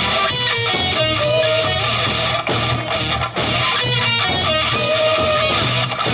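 Live rock band playing an instrumental stretch of a song, led by electric guitar, with no singing.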